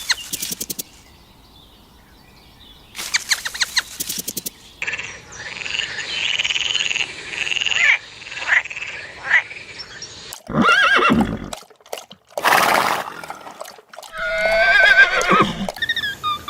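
A string of short animal calls cut one after another, one of them a horse whinnying.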